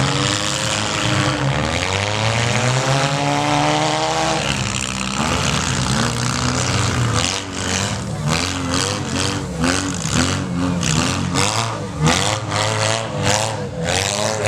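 Small-car engines revving up and down, rising and falling in pitch, with a run of short sharp knocks or bangs through the second half.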